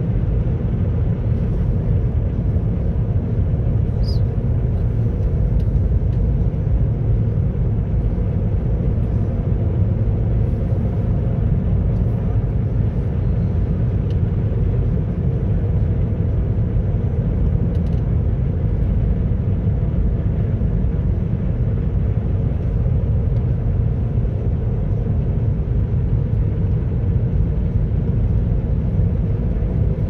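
Steady low rumble of a car driving along the road, engine and tyre noise heard from inside the cabin.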